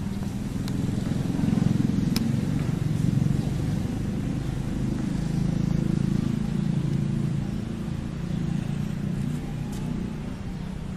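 Low rumble of a motor vehicle's engine running, swelling and easing off twice, with a few faint clicks.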